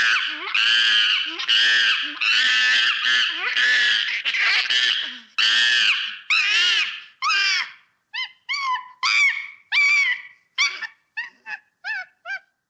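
A monkey calling: a run of loud, high cries that rise and fall in pitch, about two a second. After about seven seconds the calls turn shorter and sparser, fading and stopping near the end.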